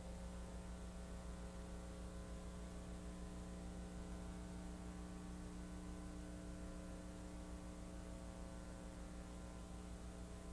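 Steady electrical mains hum with several overtones and a faint hiss underneath, unchanging throughout.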